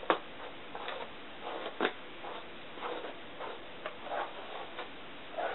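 A hairbrush drawn through towel-dried hair in repeated scratchy strokes, roughly every half second, with a sharp click at the start and another about two seconds in.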